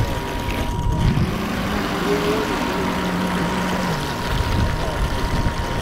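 Radio-controlled model boat motor running over the water, holding a steady pitch that drops away about four seconds in, over a constant low rumble.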